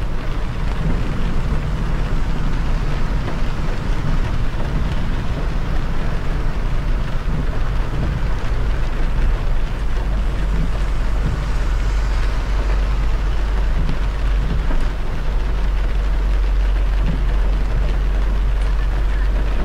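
Car driving on a wet expressway in rain: a steady low rumble of engine and tyres under an even hiss of rain and wet road.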